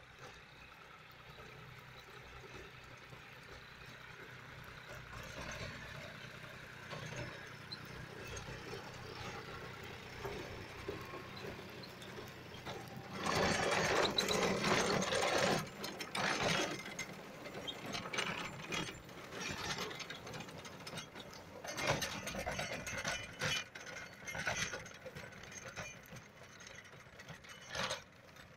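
John Deere 5050D tractor's three-cylinder diesel running under load while its PTO-driven Swan Agro rotavator churns dry soil and crop stalks, a rattling, crunching clatter. The clatter is loudest for a few seconds about halfway through, then comes and goes in uneven bursts.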